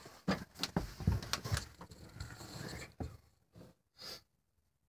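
Handling noise from a hand-held camera being carried: a quick run of knocks, clicks and rustles that dies away after about three seconds, then a single short hissy burst about four seconds in.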